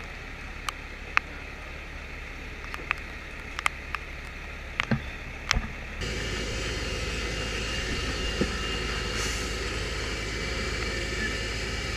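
Military cargo truck engine running as a steady low rumble, with scattered sharp clicks through the first half. About halfway through it changes abruptly to a louder, fuller rumble with hiss.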